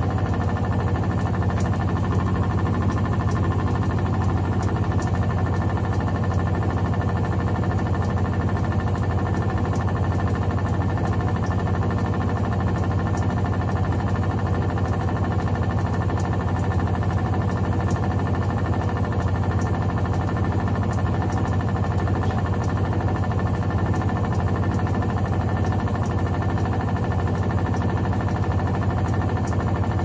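Electrolux LTC15 top-load washing machine in its spin cycle, the motor turning the basket with a steady hum that holds one pitch throughout.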